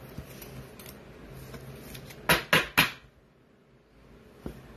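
A trading card being handled in a clear plastic toploader, with three quick plastic clicks in a row about two and a half seconds in.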